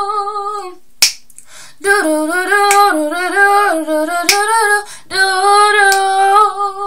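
A woman singing unaccompanied: a held note trails off, then wordless melodic runs, with single finger snaps keeping a slow beat about every second and a half.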